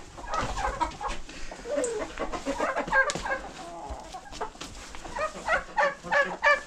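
Domestic hens clucking around the feet, many short calls overlapping, turning into a run of quick, evenly spaced clucks, about three a second, near the end.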